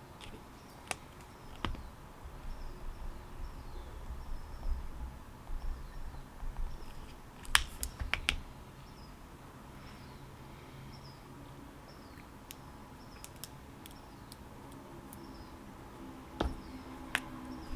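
Scattered light taps and clicks, with a small cluster about halfway through and another near the end, over faint, repeated high chirping of birds in the background.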